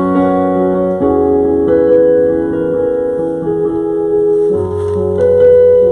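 Keyboard playing slow held chords that change every second or two: background church music with no speech.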